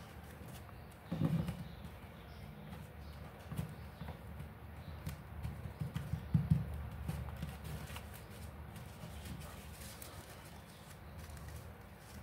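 Hands folding and pressing stiff paper on a tabletop: soft rustling with light taps and knocks, and a couple of louder bumps about a second in and about six and a half seconds in.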